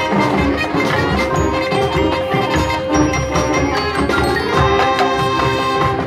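High school marching band playing its field show: held notes over busy drum and mallet-percussion strokes from the front ensemble.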